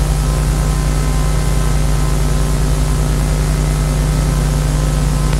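Steady, loud electrical hum and buzz with a hiss over it, unchanging throughout: a noise fault of the old videotape soundtrack rather than any sound in a scene.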